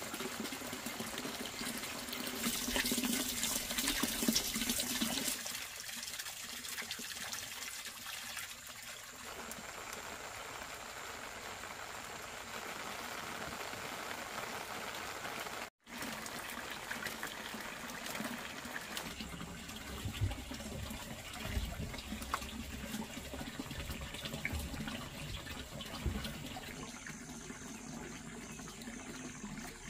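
Water running and trickling from a black plastic water hose as it is joined to pipe fittings, splashing onto wet ground.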